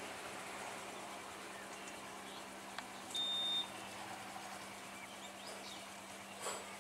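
Faint outdoor background with scattered faint bird chirps. A single short high-pitched electronic beep sounds about three seconds in, and a brief noise comes just before the end.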